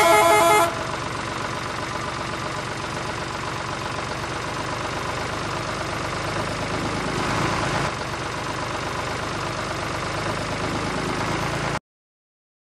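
Engine idling steadily, cutting off suddenly near the end. A brief loud tone sounds at the very start.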